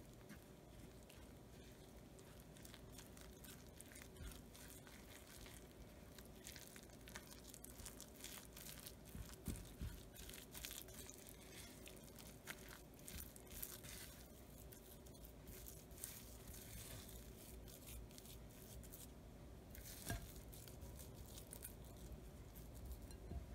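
Spatula folding a wet, floury soda-bread dough in a bowl: faint, irregular scraping and squishing strokes, with a sharper tap against the bowl near the end.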